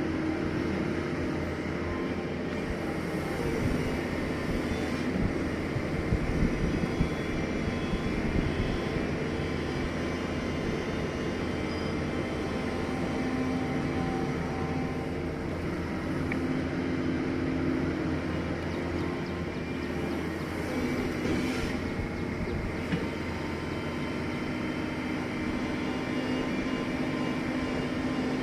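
Diesel engine of a heavy earthmoving machine running steadily under load, with a few clunks about six seconds in.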